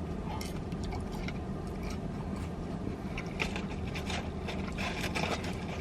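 Close-up chewing and mouth sounds of someone eating fried chicken nuggets: irregular small clicks and crunches, busier in the second half. Under them is a steady low rumble inside a car.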